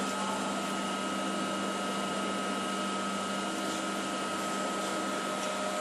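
Steady machine hum from a Biglia B301 CNC lathe standing at idle, with several steady tones over an even noise that doesn't change.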